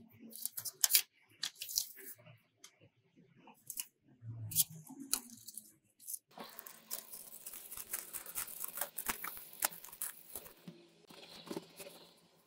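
Paper rustling and crinkling as a fold-out cassette insert and a spiral-bound photobook are handled: scattered sharp crackles, then a denser run of rustling from about six seconds in.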